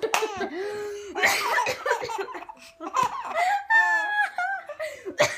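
A baby laughing in bursts and high squeals, set off by a woman's coughs, which come as short harsh bursts near the start, about a second in and near the end.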